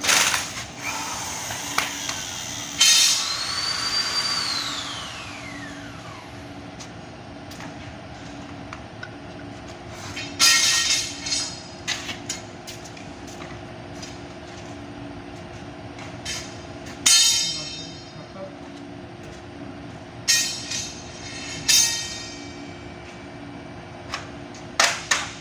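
Sharp metallic knocks and clanks every few seconds, some ringing briefly, from tools working on metal, over a steady hum. Near the start a tool's whine rises quickly and then winds down over a couple of seconds.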